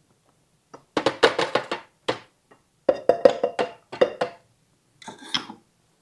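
A utensil rapidly knocking and rattling against a kitchen container in four quick bursts.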